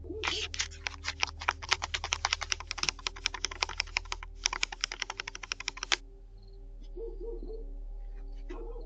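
Rapid, sharp tapping close to a video doorbell, about eight taps a second for some six seconds, with a short break about four seconds in.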